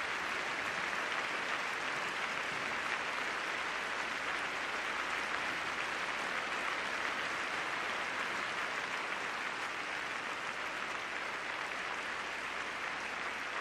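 Arena audience applauding: dense, even clapping that keeps up steadily and eases off slightly toward the end.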